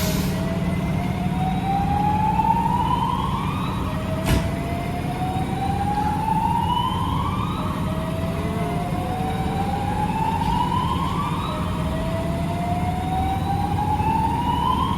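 Fire apparatus siren sounding a slow wail: four long rises in pitch, each dropping back abruptly and starting over, above a steady low engine hum. A single sharp click comes about four seconds in.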